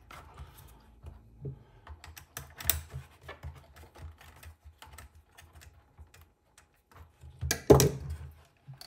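Small screwdriver driving screws into the plastic body of a 1/18-scale RC truck by hand, snugged gently because the screws are plastic into plastic, with light irregular clicks and taps as the hard plastic shell is held and turned. A louder clatter comes near the end.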